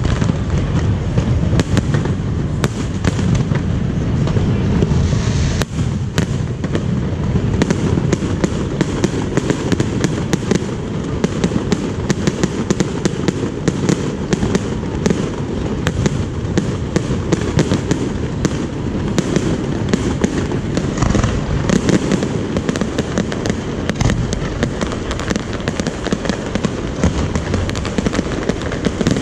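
Aerial fireworks bursting: a continuous rapid barrage of cracks and pops over a steady rumble of booms, with no pause.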